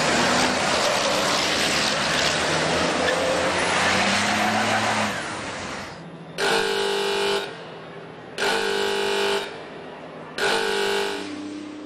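Racing trucks' diesel engines running hard as a pack passes at speed, fading out about five seconds in. Then a horn sounds three times, each blast about a second long and about two seconds apart.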